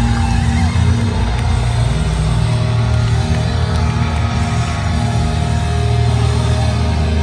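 Live death metal from a band on stage: heavily distorted guitars and bass holding long, low notes, loud and dense.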